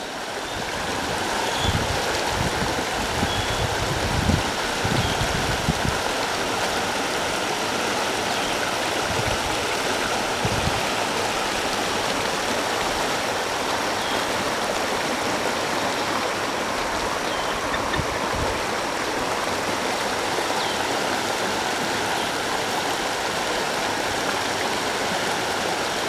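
Creek water rushing over rapids, a steady, even rush. There are a few low bumps in the first several seconds.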